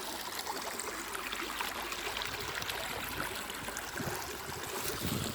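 Steady rush and trickle of a small mountain stream flowing over stones.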